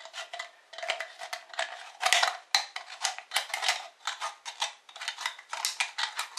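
Nail scissors cutting round a thin aluminium drink can: a steady run of sharp metallic snips, about two a second.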